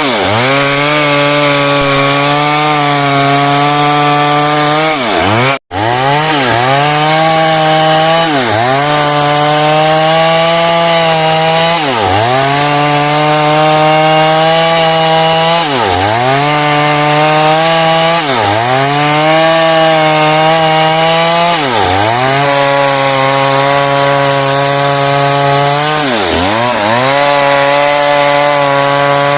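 Stihl two-stroke chainsaw running at high revs while ripping along a hardwood log. Its pitch dips sharply and recovers every few seconds as the throttle eases and opens again under load. The sound cuts out completely for an instant about six seconds in.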